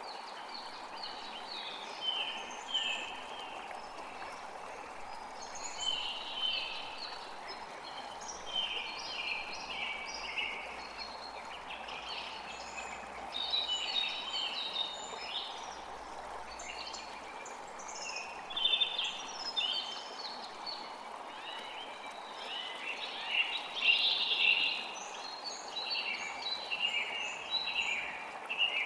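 Several birds chirping and twittering in quick, busy bursts of short high notes over a steady hiss of running water.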